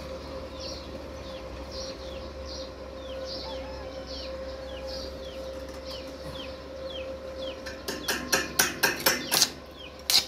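A bird peeping over and over in short falling chirps, about two a second. About eight seconds in, a quick run of sharp knocks breaks in, with two more just at the end.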